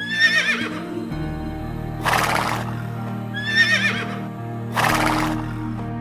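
Horse whinnying twice, high and wavering, each whinny followed about a second and a half later by a short rough burst, over soft sustained background music.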